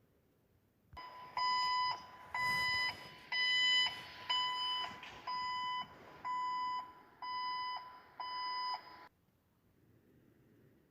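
A vehicle's electronic warning beeper sounding eight times, about once a second, each beep a steady high tone, over a background of noise that cuts off suddenly near the end.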